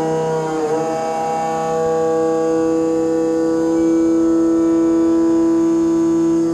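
Background music: sustained droning chords that shift about half a second in, then hold steady.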